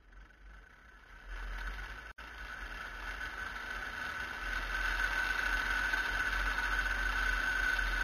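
Line trolley travelling along an overhead earth-wire cable: a steady running sound with a constant whine that grows louder over the first couple of seconds, then holds.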